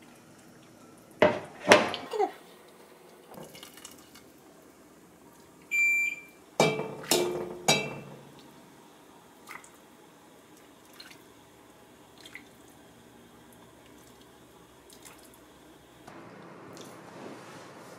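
Kitchenware being handled while soup is served: a few loud clinks of ceramic bowls about a second in, then a cluster of clanks around seven seconds as a ladle knocks against a stainless steel stockpot, followed by soft drips and splashes of broth being ladled into a bowl.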